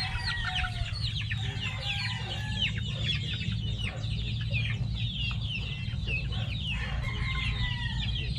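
A flock of young gamefowl chickens peeping and clucking nonstop, many short, high, downward-sliding chirps overlapping.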